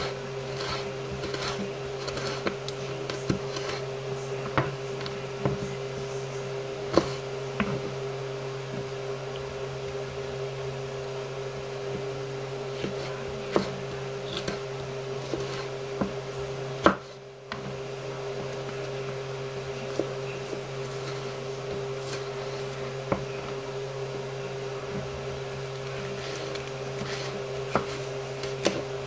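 Chef's knife cutting a green bell pepper on a wooden cutting board: irregular knocks of the blade against the board, coming close together for the first several seconds and more sparsely after. A steady hum runs underneath.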